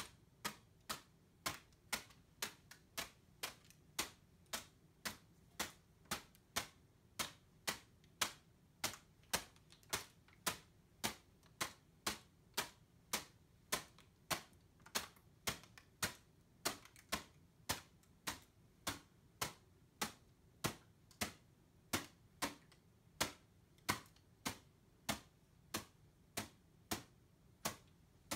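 Kamifusen (Japanese paper balloon) slapping against a bare palm as it is batted up again and again, a steady run of crisp paper pops a little over two a second. Each bounce draws air through the balloon's open hole, so the deflated paper balloon swells to full inflation.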